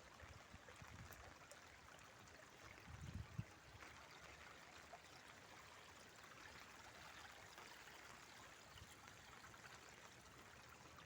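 Faint, steady rush of floodwater running down a street, with a brief low bump about three seconds in.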